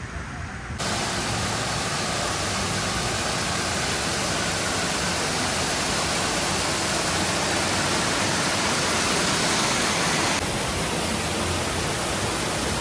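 Large fountain's water cascading over tiered circular steps, a steady loud rush of splashing water that starts abruptly about a second in.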